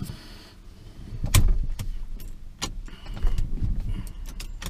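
A series of sharp clicks and knocks from handling inside a pickup truck's cab, the loudest about a second and a half in, over a faint low rumble.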